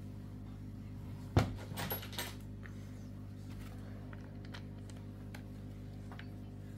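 Handling sounds from a plastic-framed HDP .50 pistol: one sharp click about a second and a half in, a few lighter knocks just after, then faint scattered ticks. A steady low electrical hum runs underneath.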